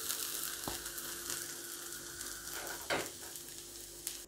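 Shredded cabbage and carrot sizzling in a nonstick pan while a wooden spatula stirs through them, with two light knocks of the spatula. The sizzle slowly fades, the flame just switched off.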